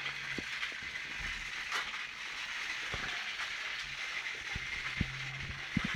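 Motorised Thomas & Friends toy trains running on a plastic track layout: a steady whirring of their small motors, with a low hum that comes and goes and scattered light clicks and knocks of wheels and track.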